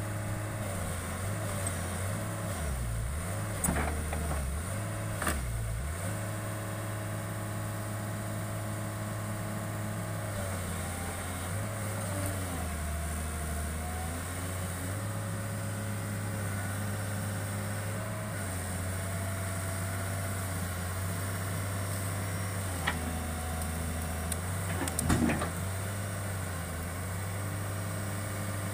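Hitachi excavator's diesel engine running, its note sagging and recovering several times as the machine is worked, with a few sharp metallic knocks, the loudest near the end.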